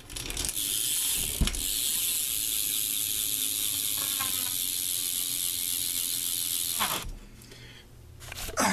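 Freewheeling BMX rear hub, the Eastern right-hand-drive hub, ratcheting as the back wheel spins. The pawl clicks run together into a steady high buzz that stops suddenly after about seven seconds, with a single knock about a second and a half in. The owner says the hub sounds like crap.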